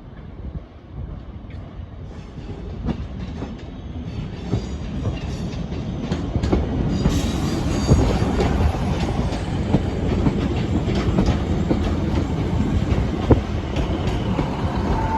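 Train on the main line growing louder as it approaches over the first several seconds, then a steady close rumble with repeated sharp clicks of wheels over rail joints.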